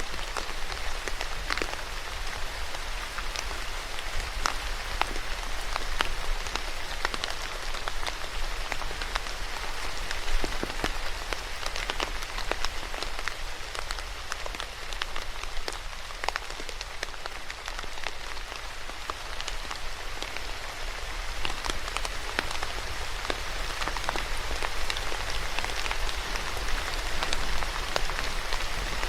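Steady rain falling on a surface, an even hiss with many scattered individual drop ticks.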